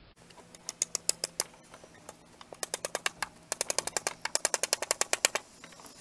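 Hammer driving nails through a wooden nest box into a cherry tree trunk: three runs of quick, sharp blows, about five a second, with short pauses between.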